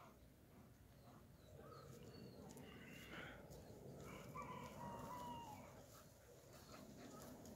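Faint outdoor background with one drawn-out animal call about halfway through, preceded by a few short, fainter calls.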